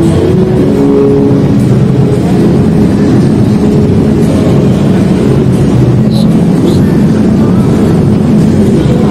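Deep, steady rumbling soundtrack of a light-projection show, played loud over hall loudspeakers, with a few held low tones in the first second or so.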